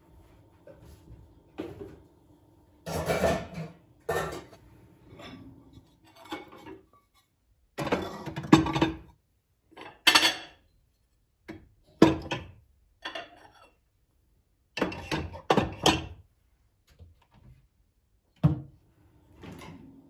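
Dishes, a steel pan, glass bowls and cutlery clinking and clattering as a dishwasher is unloaded and its contents are put away on shelves. The sound comes as a string of separate knocks and clinks with short pauses between them.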